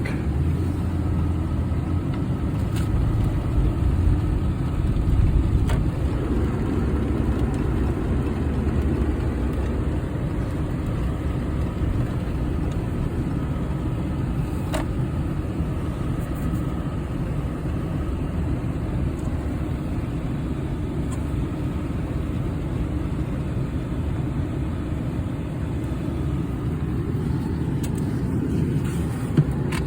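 Steady low road and engine rumble heard inside a pickup truck's cabin while it is driven, with a few faint clicks.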